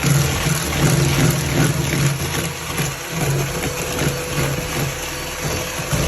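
Electric mixer running in a bowl of cake mixture, its motor hum swelling and dipping in strength.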